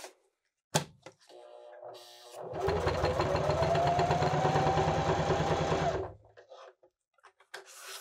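Janome HD3000 sewing machine stitching through fabric for about three and a half seconds: a fast, even stitch rhythm with a motor whine that rises in pitch as it speeds up, then stops. A sharp click comes about a second in, and a quieter hum just before the run. Threaded with the presser foot up, it now sews with no tension problems.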